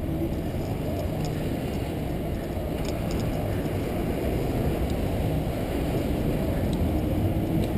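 Steady rush of wind and road noise on a bicycle-mounted action camera's microphone while riding, with a few faint ticks about three seconds in.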